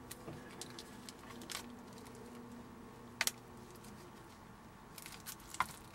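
A few light clicks and taps from a box of soft pastels being handled, the sharpest about three seconds in and a small cluster near the end, over a faint steady hum.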